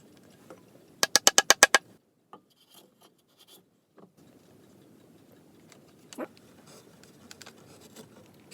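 A quick run of about eight scratchy strokes, about a second in, followed by quiet with a few faint clicks and a single sharp tick.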